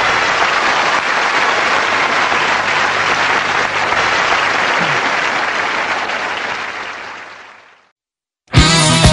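Audience applause, a dense steady clapping that fades out about seven seconds in. After a second of silence, guitar-led rock music starts near the end.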